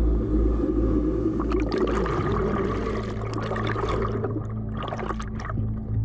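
Rush of water from a breaking ocean wave, with sharp splashes from about a second and a half in, over a low, steady ambient music drone.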